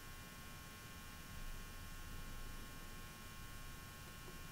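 Faint steady electrical hum with a little hiss: room tone.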